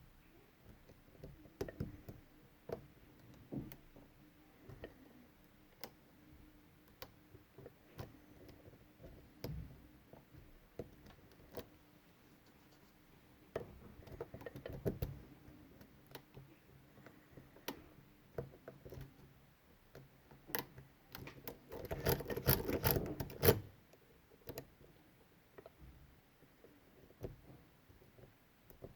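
Lock pick and tension tool working the pins of a Medeco Biaxial 51S lock cylinder: scattered small metallic clicks, with a dense run of rapid clicks about three-quarters of the way through.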